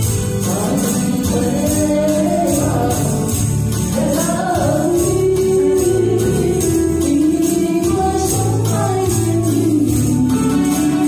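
A woman singing a slow pop song into a microphone over a karaoke backing track with a steady beat and bass, while tambourines are shaken in time.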